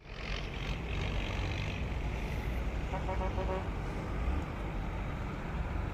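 Sleeper coach bus's diesel engine running with a steady low rumble, and a brief pulsing horn tone about three seconds in.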